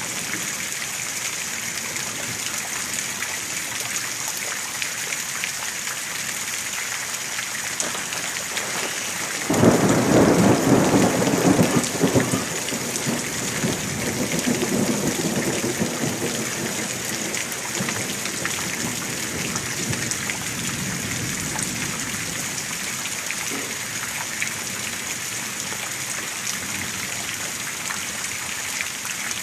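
Heavy rain pouring steadily, with a loud thunderclap about a third of the way in that rumbles on for several seconds and fades.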